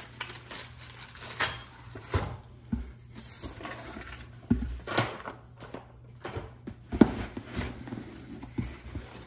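Cardboard product boxes being handled and lifted out of a corrugated cardboard shipping carton: scattered knocks, bumps and scrapes of cardboard on cardboard, with some rustling of plastic packaging.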